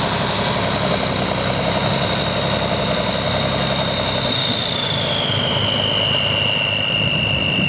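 REO M35A2 2½-ton 6x6 truck's turbocharged multifuel engine running at low revs as the truck drives slowly. A steady high whine runs over the engine note and drops in pitch about halfway through.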